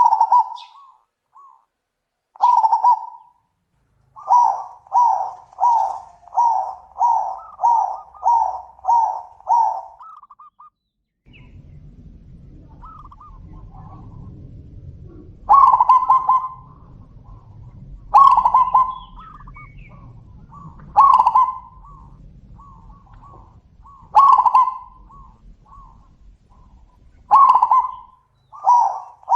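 Zebra doves (perkutut) cooing in repeated phrases of quick, bubbling notes. Early on, a run of about ten notes comes at roughly two a second. After a short gap, louder coo phrases come about every three seconds, each trailing off into softer notes over a faint low rumble.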